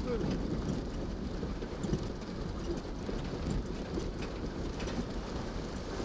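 A four-wheel drive fording a shallow river: water splashing and rushing around the wheels and body over a low engine rumble.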